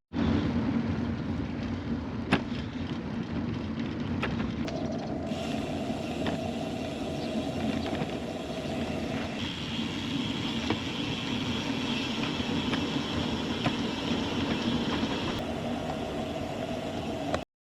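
Steady rumble of riding noise, tyres and wind on the microphone, with a few sharp clicks or knocks, from a randonneur bicycle ridden on the road.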